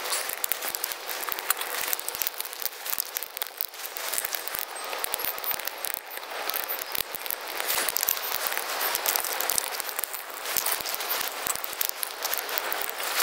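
Wood fire crackling and popping inside a stainless steel box stove, a dense, irregular run of small pops from burning kindling.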